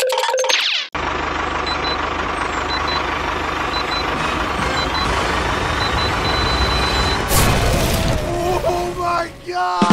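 Dubbed tractor engine sound effect running steadily while a bomb timer beeps about once a second, the beeps turning into one long tone. About seven seconds in, an explosion sound effect goes off, followed by cartoon effects that fall in pitch.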